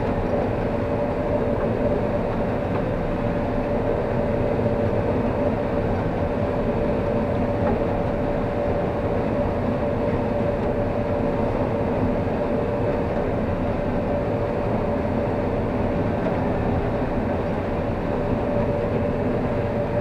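Combine harvester running steadily while harvesting corn, heard from inside the cab: an even mechanical drone with a steady hum on two close pitches.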